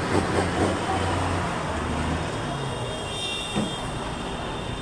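Heavy truck engine running close by, a low steady rumble that fades after about two seconds, over general traffic noise.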